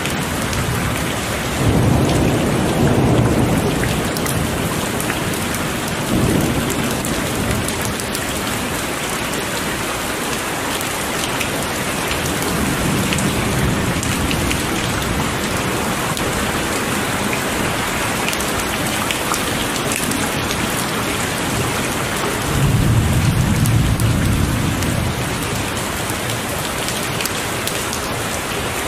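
Heavy rain falling steadily, with rolls of thunder rumbling over it several times; the loudest roll comes near the end.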